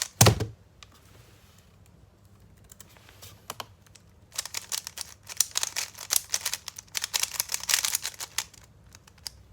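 A thump near the start, then a Rubik's cube being turned with one hand: the plastic layers click in scattered turns at first, then in a dense, fast run of clicks for about four seconds, with a few last turns near the end.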